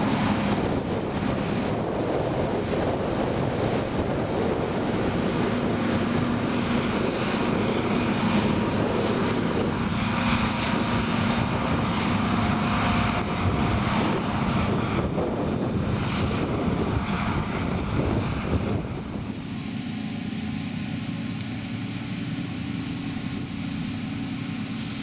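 Heavy diesel harvesting machinery running steadily, a constant engine hum with a whirr over it. About 19 s in the sound drops to a quieter, steadier drone.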